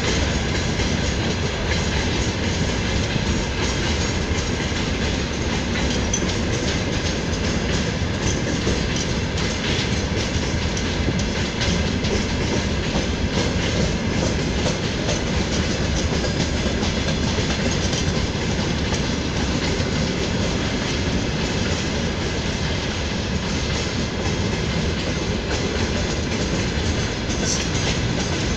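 Freight train of open gondola wagons rolling past at a steady pace, the wheels clattering continuously over the rail joints.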